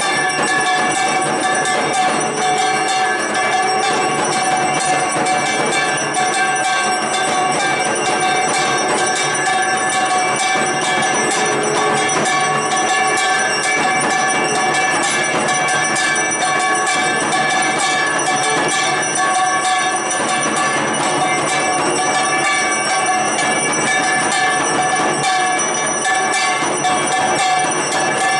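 Brass puja hand bell rung rapidly and without pause, a dense jangle of many overlapping metallic ringing tones at a steady level.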